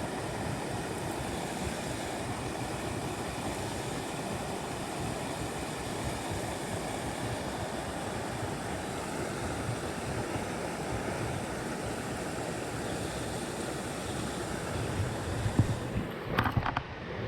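Small mountain stream rushing steadily over its bed. A few short knocks come near the end.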